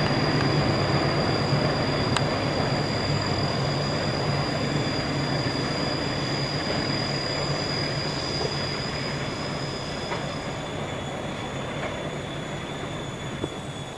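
Passenger train rolling away around a tight curve: wheels running on the rails with a steady rumble and a thin high-pitched wheel squeal, all fading as the train recedes. The squeal stops about ten seconds in.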